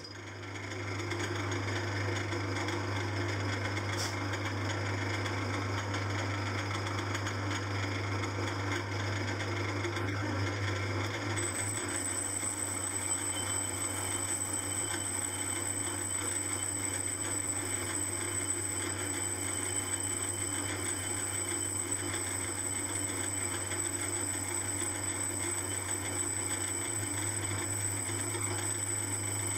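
Small metal lathe starting up and then running steadily with a low hum, spinning a model-engine flywheel during another facing pass on the side of its rim to skim off etched lines. A thin high whine joins about a third of the way through and stays on.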